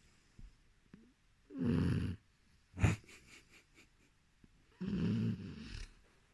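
Boxer puppy snoring: two snores of under a second each, about three seconds apart, with one brief sharp noise between them.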